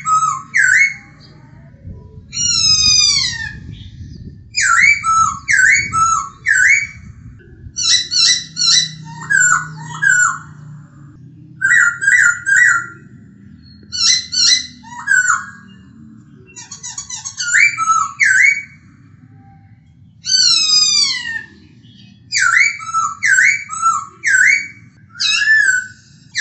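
Black-throated laughingthrush (Poksay Hongkong) singing: loud phrases of quick, down-slurred whistled notes, repeated with short pauses. Twice a phrase is instead a long falling whistle.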